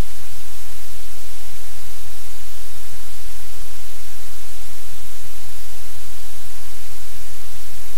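Loud, steady hiss of static on the audio feed, with a low hum underneath.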